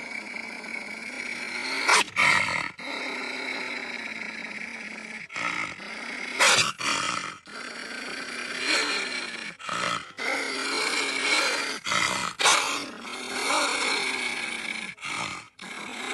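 Made-up wolf spider sounds: a series of spliced animal growls and roars with wavering pitch, in short pieces that cut off abruptly several times.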